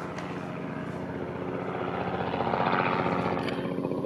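Helicopter flying overhead, its rotor chop a fast, even pulsing over a steady engine note that grows louder as it approaches.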